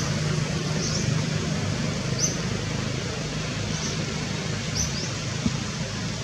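Steady outdoor background noise with a handful of short, high chirps or squeaks, about one a second.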